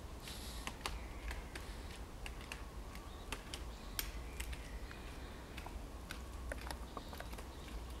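Woodpecker tapping and picking at bark while foraging: irregular sharp taps, about two or three a second, with faint woodland birdsong behind.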